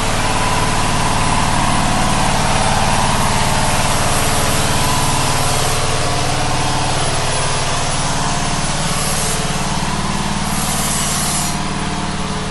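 Power generator engine running steadily, a constant drone that gets a little fainter near the end.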